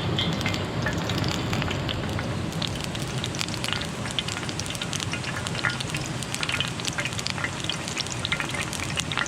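Fish frying in hot oil in a pan on a wood stove: a steady sizzle with many small pops and spits, getting busier from about two and a half seconds in.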